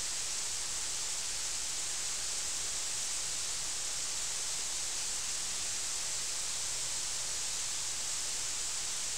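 Waterfall: a steady, even hiss of falling water.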